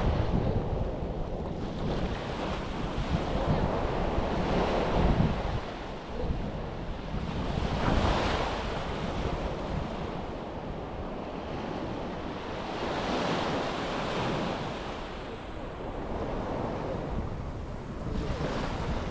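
Sea waves breaking and washing up a beach, the surf swelling and fading every four to five seconds, with wind buffeting the microphone.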